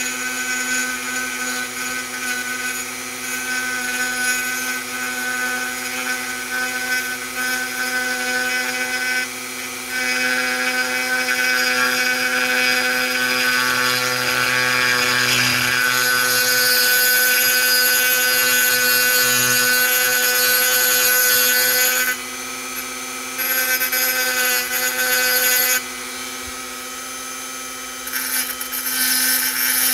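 Handheld rotary tool with a small diamond burr running at speed, lightly grinding the edge of a port inside a chainsaw cylinder to deburr it. A steady high motor whine with a grinding hiss that swells and fades as the bit touches the metal; it goes quieter twice in the last third.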